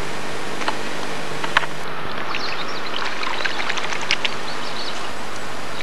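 Water splashing and sloshing at the river's edge as a released carp kicks away from the bank: many small sharp splashes from about two seconds in, over a steady hiss and hum. Before them, a couple of sharp clicks, the loudest about a second and a half in.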